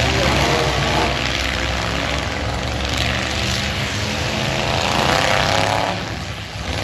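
Eight-cylinder demolition derby cars' engines running hard and revving, a loud continuous engine noise that rises and falls.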